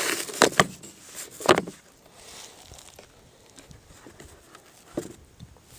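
Black plastic hard gun case being handled and opened: a few sharp clicks and knocks in the first second and a half as the latches and lid go, then quiet, with one more knock about five seconds in.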